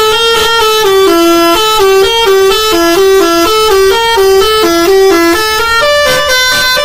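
A tune played as a run of short held notes with a buzzy, horn-like tone, about three notes a second, moving to higher, longer notes near the end.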